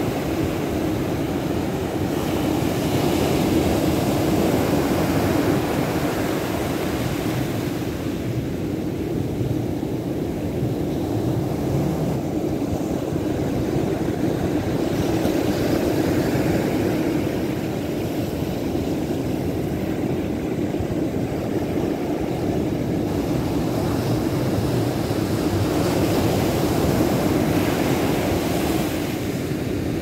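Pacific Ocean surf breaking over rocks and washing up a sandy beach: a steady rush of water that swells with each incoming wash, about every ten seconds.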